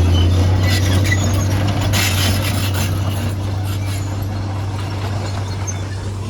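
Heavy earthmoving machine's diesel engine running steadily with a deep, even drone, and scattered clatter of metal and rock in the first half.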